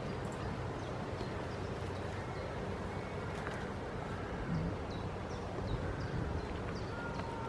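Steady wind noise on the microphone, with a few light knocks from two young goats butting heads. A string of short, high, falling chirps sounds in the background.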